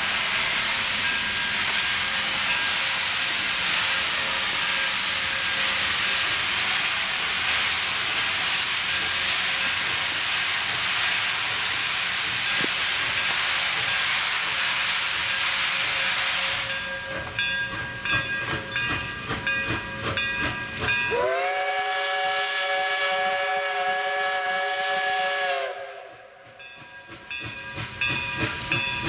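Chinese-built QJ 2-10-2 steam locomotive working, with a loud steady hiss of steam venting from its cylinder cocks for the first half. Then its exhaust beats come through, and about 21 seconds in it sounds one long steam-whistle blast of several tones together, held about four and a half seconds before it cuts off.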